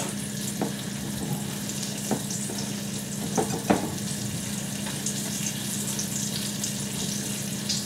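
Panko-breaded haddock fillet frying in hot oil, a steady sizzle, with a low steady hum underneath. A few light knocks come between about two and four seconds in.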